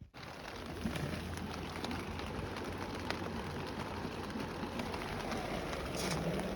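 Wood campfire burning: a steady hiss with scattered sharp crackles.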